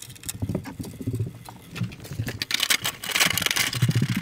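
Handling noise of a sheet-metal switch bracket and its screws rattling and scraping against a bandsaw's housing as they are fitted and tightened by hand. The clicking grows denser and louder in the second half.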